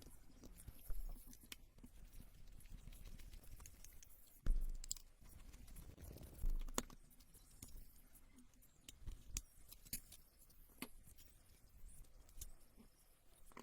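Scattered small clicks, taps and knocks, as of small parts and tools being handled on a work surface, with two louder knocks about four and a half and six and a half seconds in.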